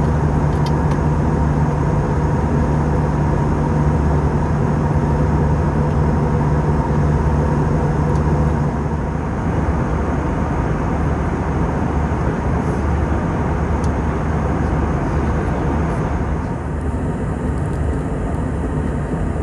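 Steady drone of an Airbus A319's CFM56 engines and air noise heard inside the passenger cabin, with a few steady tones running through it. One low tone drops away about halfway through.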